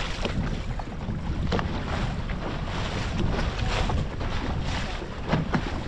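Wind buffeting the microphone over the rush and slap of the sea along the hull of a small open fishing boat, with scattered short splashes.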